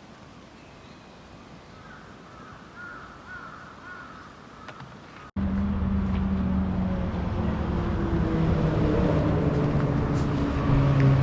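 Crows cawing over quiet outdoor ambience. About five seconds in, an abrupt cut brings in a much louder motor-vehicle drone with steady low tones that shift in pitch.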